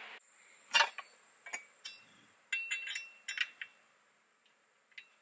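Small metal roof-rack hardware, bolts and washers, clicking and clinking as it is handled and set into a crossbar bracket. There are a dozen or so sharp clinks: the loudest about a second in, a quick cluster around three seconds, and a last one near the end.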